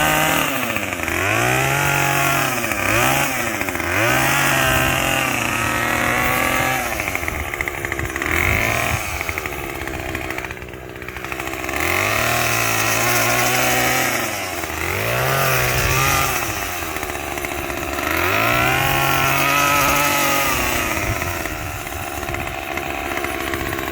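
Chain saw engine revving up and dropping back again and again while cutting brush and vines, with several longer held bursts at full speed and a quieter idling lull near the middle.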